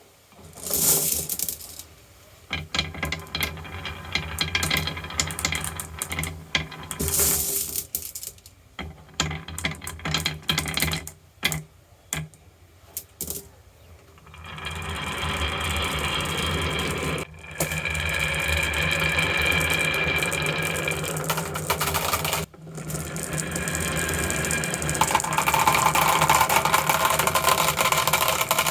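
Marbles clattering and clicking down a marble run track, with rapid knocks for the first half. From about halfway they settle into a steady rolling run that carries some ringing tones, then stop near the end.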